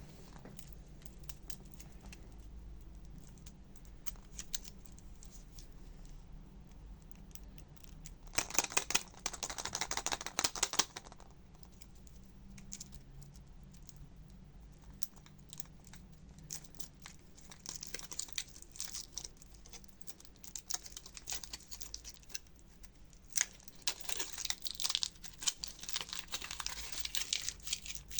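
Surprise-egg wrapper being crinkled and torn open by hand, in three bouts of crackling with quieter handling between them.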